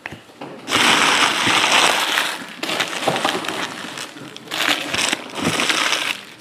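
Packaging being crumpled and crinkled by hand, most likely the empty foil pack wrappers from the opened trading-card packs. It comes in one long loud stretch starting about a second in, then twice more near the end.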